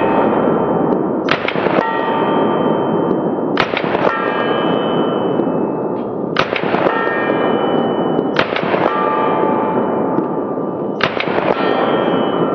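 Semi-automatic 9mm shots from a Colt AR-15 9mm carbine, fired in pairs about every two seconds, each pair followed by a metallic ringing that fades over about a second, over a steady loud noise underneath.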